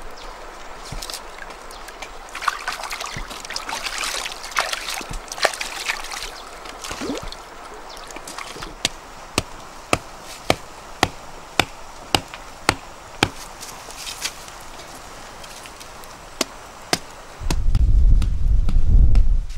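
River water trickling and splashing at the bank, then a hatchet chopping wood: a steady run of sharp strikes, about two a second. A loud low rumble comes in near the end.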